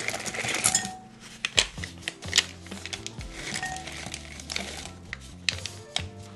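Background music with kitchen handling sounds over it: a couple of stretches of scraping or rustling and a few sharp clicks, like utensils or a container being handled.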